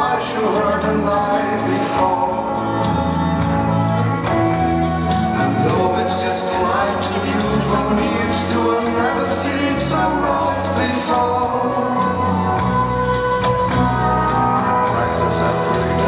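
Latin ballroom dance music with singing and a steady beat, played for a competition heat.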